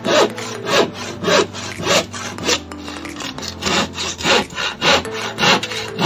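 Hand saw cutting through a plywood sheet in steady back-and-forth strokes, about one and a half a second, with a brief pause about three seconds in.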